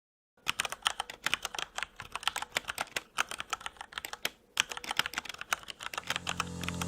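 Rapid typing on a keyboard, a quick run of clicks with a short pause a little past halfway. Music begins to fade in near the end.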